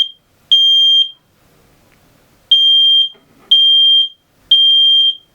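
Smoke alarm sounding its three-beep evacuation pattern: loud, high-pitched single-tone beeps about half a second long, one a second, in groups of three. The tail of one group ends about half a second in, then after a pause of about a second and a half a full group of three beeps sounds.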